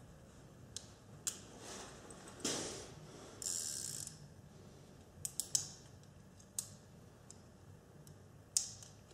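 Harrington & Richardson 949 nine-shot .22 revolver being reloaded by hand: scattered metallic clicks as its cylinder is turned, with a short rattle about three and a half seconds in.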